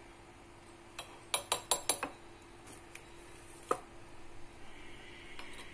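Metal spoon clinking against a small stainless steel Turkish coffee pot (cezve) while coffee grounds are spooned in: one clink about a second in, then a quick run of about five clinks, and a single one near four seconds.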